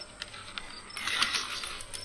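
Marbles rolling along multicoloured plastic rail tracks: a continuous rattling run with small clicks, getting louder about a second in.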